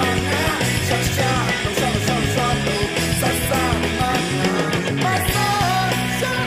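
A Lisu-language song: a voice singing over a band backing with bass and a steady drum beat.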